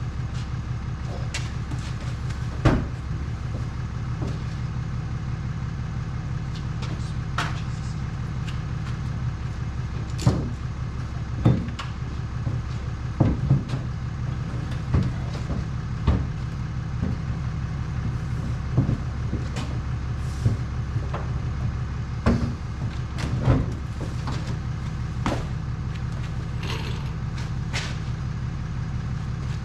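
Truck engine idling steadily, with a dozen or so short knocks and clunks over it.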